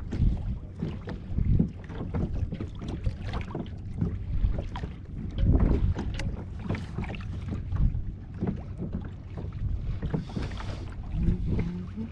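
Small waves slapping and lapping against a fishing kayak's hull in an irregular patter, with wind buffeting the microphone.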